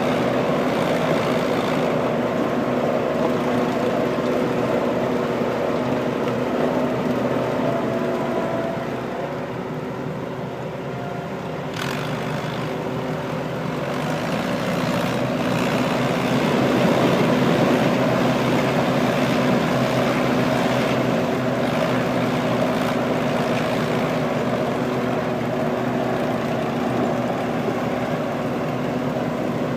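Prune harvesting machinery running with a steady engine drone. It eases off slightly about a third of the way through, then swells again.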